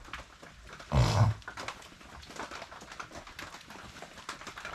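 A dog makes one short, loud breathy sound about a second in, over faint scattered small clicks and rustling.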